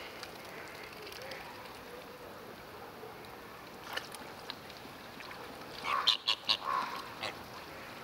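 A duck or goose-type waterfowl calling: a quick run of about five loud, short calls about six seconds in, over steady outdoor background noise, with a single sharp click about four seconds in.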